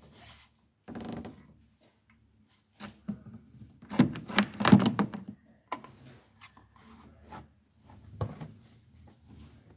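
Intermittent knocks, clunks and rubbing from tools and car parts being handled. One knock comes about a second in, a cluster of louder knocks comes around the middle, and a single knock comes near the end.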